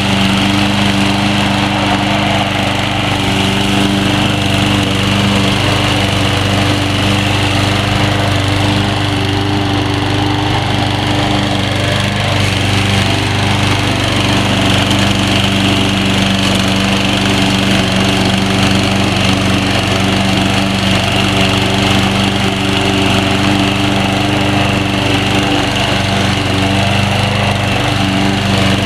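Troy-Bilt TB230 21-inch self-propelled walk-behind lawn mower running steadily while cutting thick grass.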